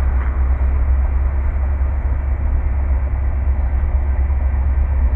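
Steady low rumble of an approaching CSX diesel locomotive and slug set, with no horn sounding.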